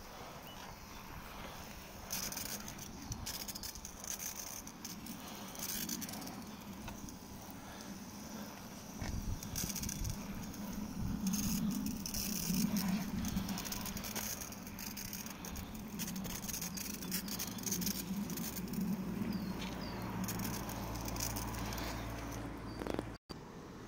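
Water from a garden hose spraying and pattering onto a motorcycle and wet paving stones, coming and going in irregular bursts.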